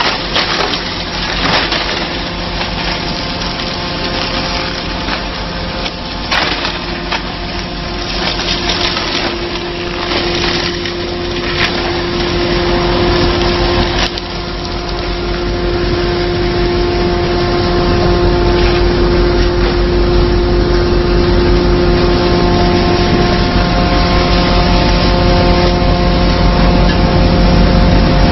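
Wood-processing machinery of a sawdust pallet making line running with a steady hum, with wood cracking and snapping through the first half. About halfway through the cracking gives way to a heavier, louder low rumble.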